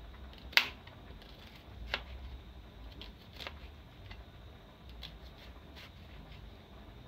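Kitchen knife slicing an onion on a plastic cutting board: irregular sharp taps of the blade against the board, the loudest about half a second in and a weaker one near two seconds.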